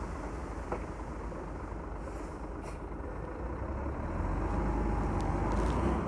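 Diesel engine of a Komatsu D31P bulldozer running steadily under work, growing louder over the last two seconds, with a few faint clicks.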